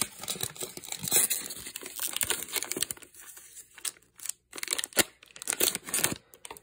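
Shiny plastic wrapper of a basketball trading-card retail pack crinkling and tearing as it is pulled open by hand. There is a dense crackle for the first three seconds or so, then scattered crinkles and a sharp click about five seconds in.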